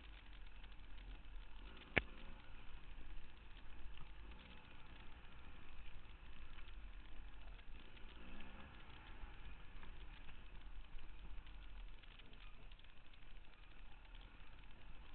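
Enduro dirt bike engine running faintly and steadily, with one sharp knock about two seconds in.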